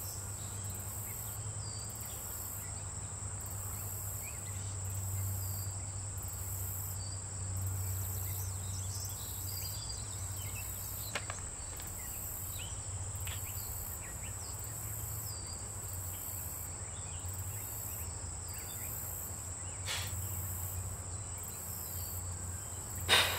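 Cicadas singing: a continuous high buzz with a layer that pulses roughly once a second, over a low steady hum.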